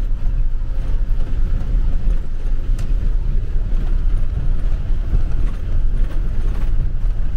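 Converted school bus driving on a rough gravel road, heard from inside the cab: a loud, uneven low rumble of engine and road.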